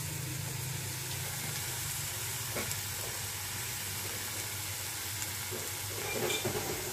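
Carrot and potato filling frying in a steel kadai on a gas stove, sizzling steadily over a low hum, with a faint click partway through.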